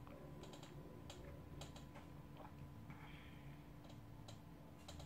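Near silence: faint room hum with a few scattered faint clicks.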